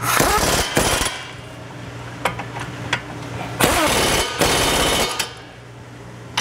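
Impact wrench hammering caliper bolts tight in two bursts, the first about a second long right at the start and the second about a second and a half long in the middle, with a few light clicks of the socket between them.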